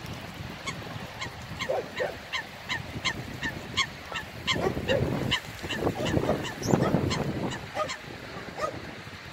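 Waterfowl calling: a rapid, regular series of short high calls, about three a second, with louder lower honking calls mixed in, busiest in the middle, over a steady low rumble of wind on the microphone.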